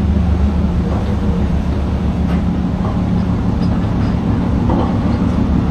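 Steady, loud low rumble of a large ship's diesel engines as the vessel passes through the canal.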